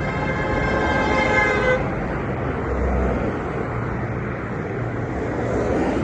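A vehicle horn held as one steady blare, cutting off a little under two seconds in, over steady road traffic noise.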